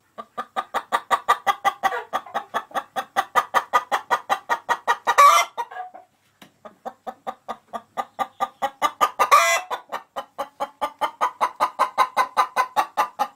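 Hen singing its egg song, the call hens make after laying: a rapid run of clucks, about five a second, broken by a louder drawn-out squawk about five seconds in and again about nine seconds in, with a short pause around six seconds.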